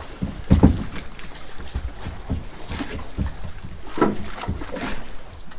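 Irregular knocks and thumps on an aluminum fishing boat, the loudest about half a second in and another about four seconds in.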